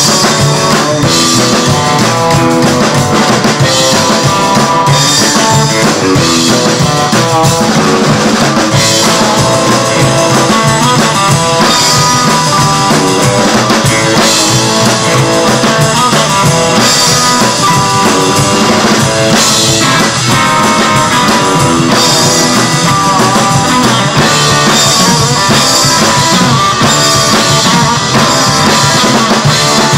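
Rockabilly band playing live: hollow-body electric guitar, upright double bass and drum kit together, loud and steady.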